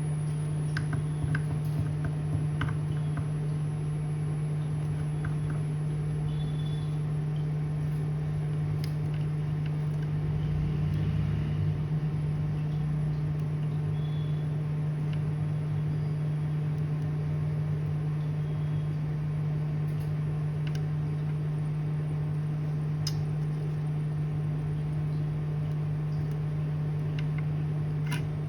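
Steady low electrical hum from the repair bench, with a few faint ticks of tools touching the circuit board.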